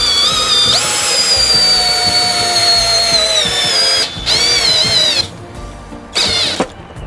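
Favourite DC 1802 cordless drill-driver's motor whining: a long run whose pitch slowly drops, then it stops and gives two short bursts.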